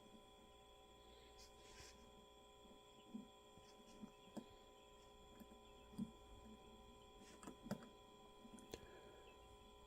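Near silence: a steady electrical hum, with a few faint clicks and taps as the small parts of a motorcycle fuel petcock are handled and fitted together.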